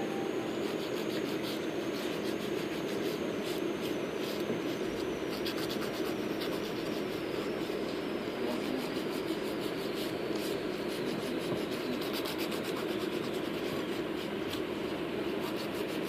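Nitrile-gloved fingers rubbing and scraping over freshly applied acrylic nails, with scattered small scratchy ticks over a steady low background hum.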